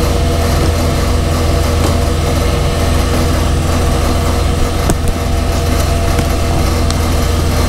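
A steady machine hum with a low drone and several steady tones running throughout, and a single click about five seconds in.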